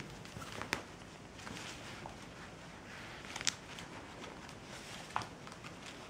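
Kittens scampering and pouncing on a hardwood floor and clawing at a fabric curtain: soft patter and rustling, with three sharp clicks, the loudest about three and a half seconds in.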